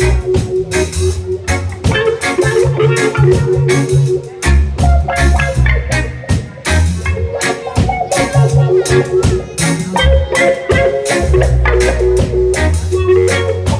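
Reggae band playing an instrumental passage: a repeating bass line and drum kit keeping an even beat, with a lead melody over them.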